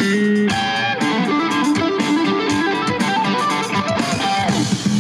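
Music led by guitar, with held notes over a moving melody and a falling slide near the end.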